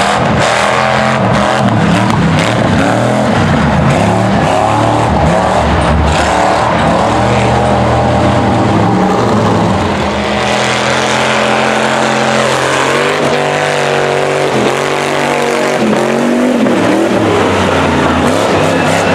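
Engine of a lifted off-road mud truck revving hard over a dirt course, its pitch rising and falling repeatedly with the throttle.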